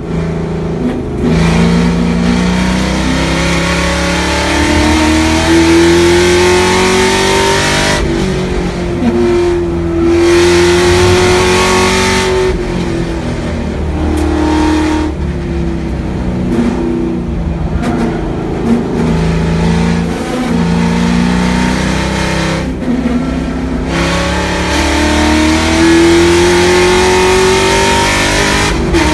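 Race car's engine heard from inside the cabin at speed on a lap. The note climbs in pitch under acceleration and drops back several times, at upshifts or where the throttle comes off for corners.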